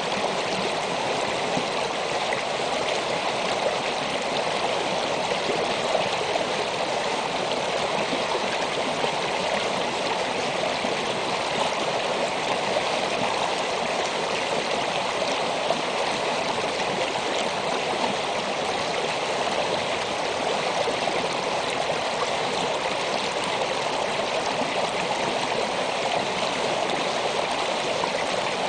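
Shallow creek flowing over and around rocks, a steady, even rush of running water.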